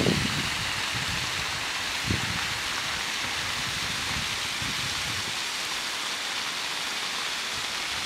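Small waterfall splashing steadily, an even rushing hiss. A brief low thud about two seconds in.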